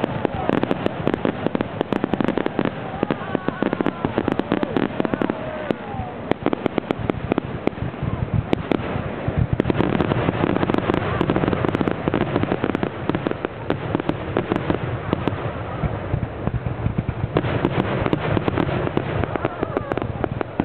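Aerial fireworks shells going off in a grand-finale barrage: a dense, unbroken run of rapid bangs, many a second.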